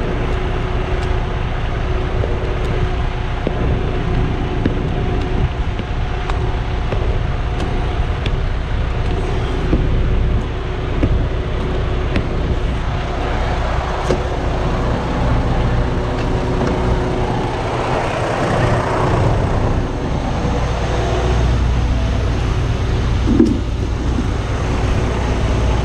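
Semi truck's diesel engine idling steadily, a constant low hum with a faint steady tone above it and a few light knocks.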